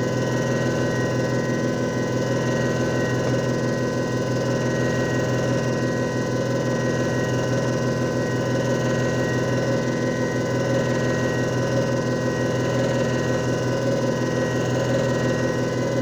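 JFJ Easy Pro disc repair machine running steadily: a constant motor hum with several steady high-pitched whines above it.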